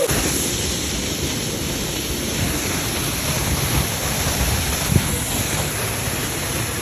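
Waterfall rushing steadily, with a deep low rumble under the spray. A short thump comes about five seconds in.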